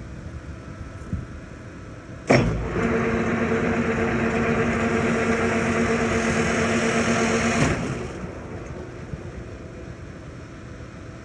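Kearney & Trecker 3CH horizontal milling machine running. About two seconds in, a louder gear-driven drive kicks in with a steady gear whine over a rattle. It runs for about five seconds, then stops, leaving a lower steady hum.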